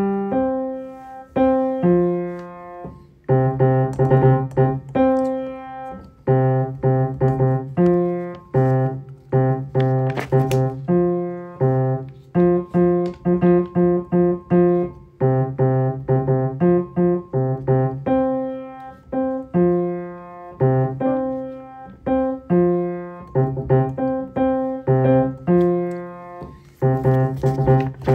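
Piano playing a steady, repeating pattern of chords over low bass notes, each struck note dying away before the next.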